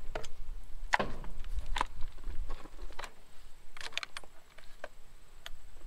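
Irregular sharp clinks and knocks of hand tools on metal as rusted bolts are worked out of a cover on the engine block, a few of them ringing briefly.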